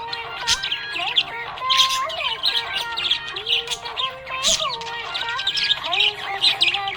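Budgie chirping and warbling with a dense, unbroken stream of quick high chirps over a wavering lower warble.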